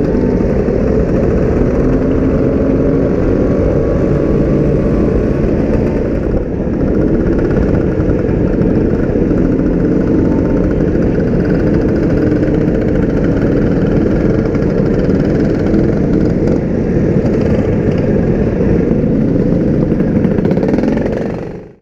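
Scooter engines running in a moving pack of classic scooters, heard from the rider's own scooter. The sound is steady throughout and fades out quickly at the very end.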